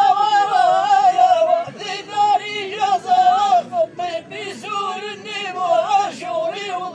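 Men's voices chanting Amazigh sung poetry in one wavering melodic line, held long at first, then broken into shorter phrases.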